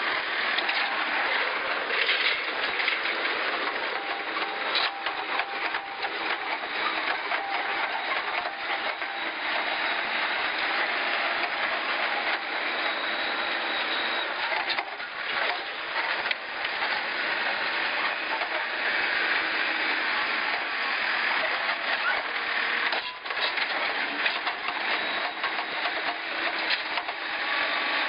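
Backhoe loader's diesel engine running steadily under load as its front bucket works into a pile of rubble, with a few short knocks.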